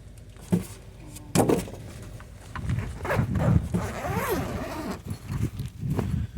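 Carrying case of a 12 V portable air compressor being opened and unpacked: two sharp clicks early, then several seconds of rustling and knocking as the contents are handled.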